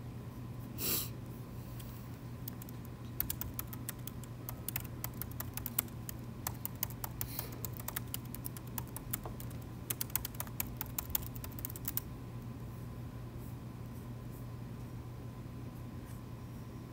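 Typing on a laptop keyboard: quick runs of key clicks that start about two and a half seconds in and stop about twelve seconds in, over a steady low room hum. A brief soft noise comes about a second in.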